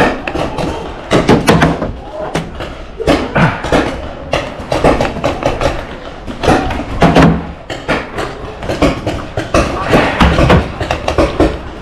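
Paintball markers firing in irregular strings of sharp pops, with balls smacking against cover.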